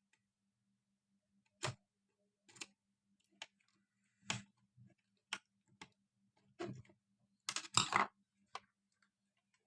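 Scattered clicks and light knocks, about ten in all and the busiest near the end, from hands handling the wiring and the plastic casing of a small LED-strip power supply, over a faint steady hum.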